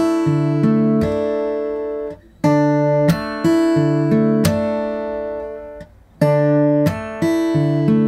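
Martin D-42 acoustic guitar fingerpicked on a Dsus2 chord: plucked bass and treble notes with a percussive thumb-and-finger slap on the strings. The one-bar pattern starts over twice, with a short break each time.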